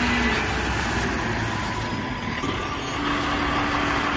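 Garbage truck engine running steadily, with an even hissing noise over it.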